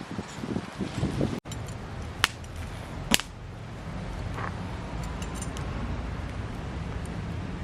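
Wood fire crackling over a steady low rumble, with two sharp pops about two and three seconds in. A few soft knocks come before an abrupt cut about a second and a half in.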